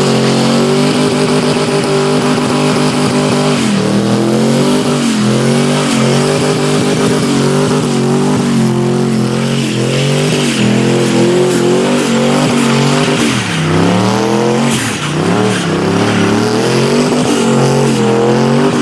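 V8 muscle car doing a burnout: the engine is held at high revs, dipping and picking up again several times, over the hiss and squeal of spinning tyres.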